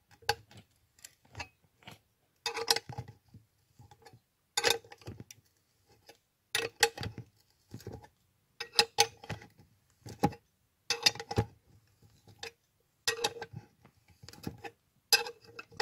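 Short bursts of metal clicking and clinking, repeating every second or two: hand tools and steel fittings working on the brake disc mounting.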